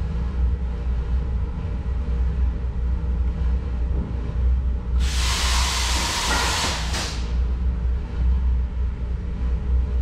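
STOTEK electric pre-heater furnace running with a steady low hum. About five seconds in, a loud hiss lasts about two seconds and stops with a click.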